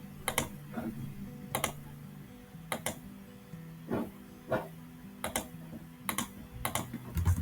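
Scattered clicks and keystrokes on a computer mouse and keyboard, sharp and irregular, roughly one a second, over a faint low steady hum.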